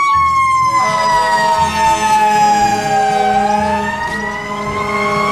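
Fire engine siren wailing: one slow sweep that falls in pitch for about three seconds and then rises again, over a steady low hum.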